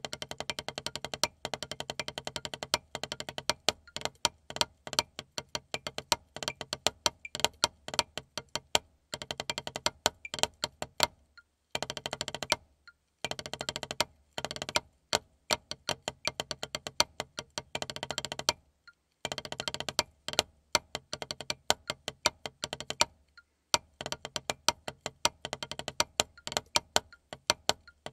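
Wooden drumsticks playing a rudimental snare-drum solo on a rubber practice pad: rapid, dry strokes with louder accented notes, broken by a few short rests.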